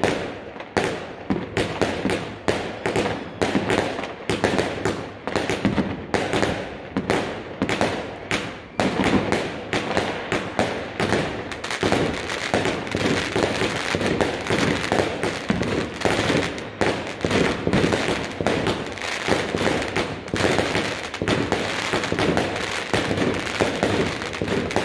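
Aerial fireworks bursting in rapid succession: a quick string of bangs and crackles, becoming almost continuous crackling about halfway through.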